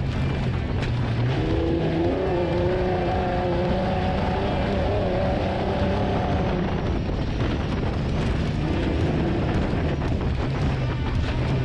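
Off-road race vehicle's engine running hard at speed, its pitch rising and falling slightly, over steady driving noise.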